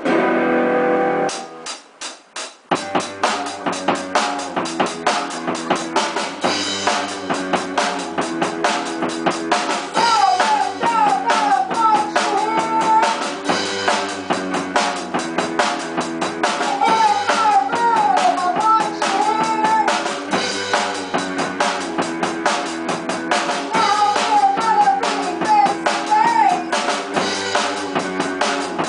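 Rock band playing live: a held chord stops about a second in, a few drum hits follow, then the band kicks in with an electric guitar and bass riff over a steady drum-kit beat. A bending lead melody comes and goes over it.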